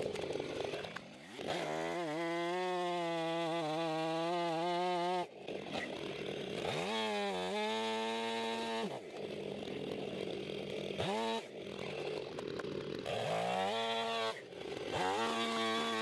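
Stihl two-stroke chainsaw cutting into a tree trunk for a felling notch and bore cut. It revs up to full throttle and holds there for a few seconds, then drops back to idle, over and over several times.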